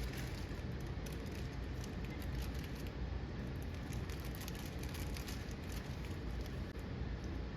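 Food sizzling in a pan, with many small irregular crackles over a steady low hum.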